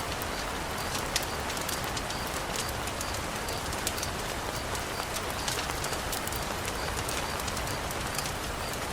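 Heavy rain falling steadily, an even hiss with many scattered sharp ticks of drops striking close by.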